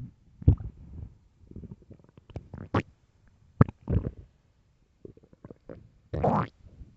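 An empty human stomach growling: a run of short, irregular gurgles and pops, with a longer gurgle about six seconds in.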